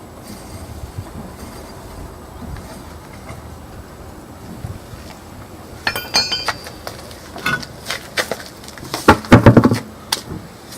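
Metal parts being handled while a car wheel is taken off: sharp metallic clinks with a brief ring about six seconds in, then several knocks and a run of heavy thumps, the loudest near the end.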